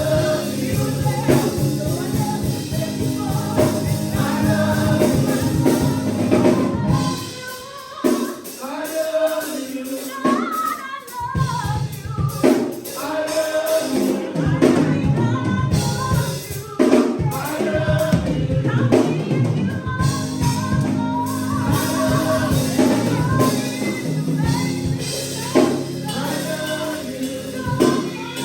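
Gospel music: singing over a band with drum kit, and the low end of the band drops out for a few seconds near the middle before coming back in.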